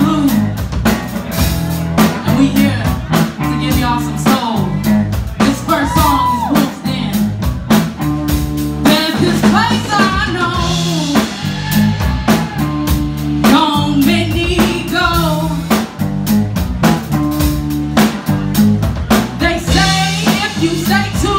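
Live blues band playing: electric guitar, bass guitar and drum kit keeping a steady beat, with a singer's voice over them.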